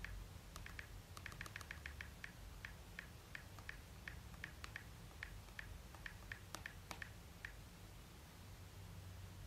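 Typing a password on an iPhone 13's touchscreen keyboard: a faint run of short clicks at an uneven pace that stops about three-quarters of the way through.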